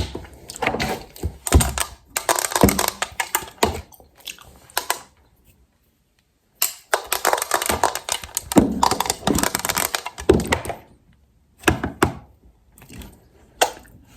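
Close-miked ASMR handling of makeup items: fast, irregular tapping, clicking and crackling with occasional thunks, in bursts broken by a short pause about halfway through.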